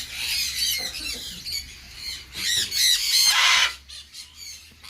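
Small parrots, sun conures among them, chattering and squawking in quick high chirps, with a loud harsh screech about three seconds in that lasts about half a second.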